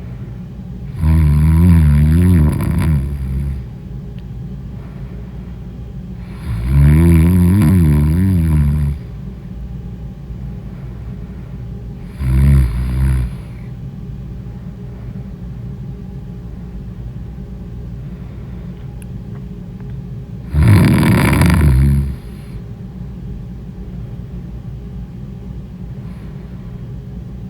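Loud snoring from a sleeping woman: four rattling snores at uneven gaps, the third one short, with a longer pause before the last. A steady low hum runs underneath between the snores.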